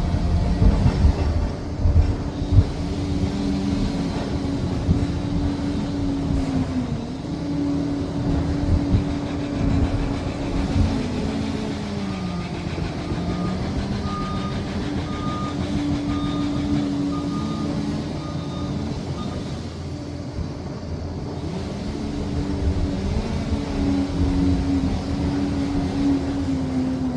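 Liebherr PR 746 crawler dozer running under working load, its diesel engine rising and falling in pitch, with heavy clanks and thumps in the first few seconds. A reversing alarm beeps for a few seconds around the middle.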